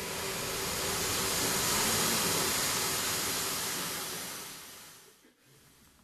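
A steady rushing hiss that swells, then fades away smoothly about four to five seconds in.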